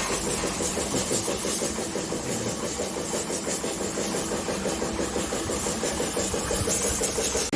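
A motor running steadily with a fast, even pulse, along with a steady hiss.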